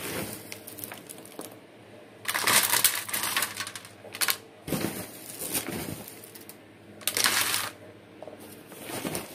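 Chunky bark orchid substrate scooped by hand and dropped and pressed into thin plastic cups: several crackling, rustling bursts a second or so apart.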